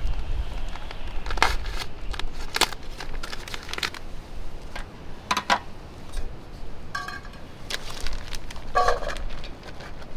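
Plastic food packet crinkling and rustling in a series of irregular crackles as it is torn open and handled.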